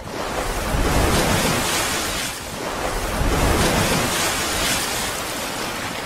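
Rushing-water sound effect, a steady noisy wash like surf that starts abruptly and swells and eases slowly.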